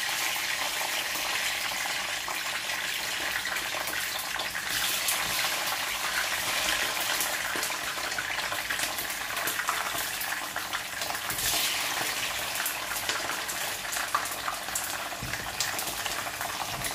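Whole green chilies frying in hot olive oil in a pan: a steady sizzle with many small crackles and spits of oil.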